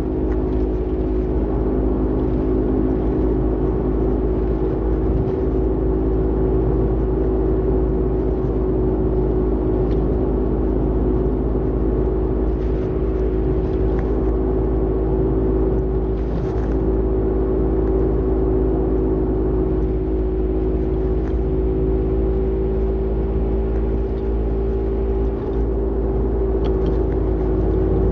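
Steady road rumble from a moving Toyota Vitz NCP13 with a loud, steady droning hum over it: the "goooo" of a worn wheel hub bearing.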